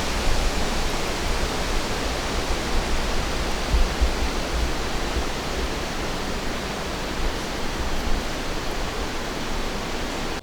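Strong wind rushing through the trees and buffeting the microphone, a steady hiss with a gusting low rumble that swells and dips.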